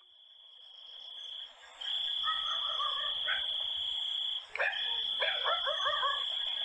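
Night-time ambience sound effect: a steady high insect trill fading in, with frogs croaking over it from about two seconds in.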